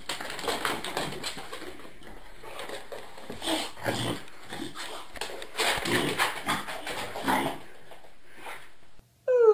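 Beagle whimpering and whining in short bursts while it rolls and wriggles on its back. A loud cry that falls in pitch begins at the very end.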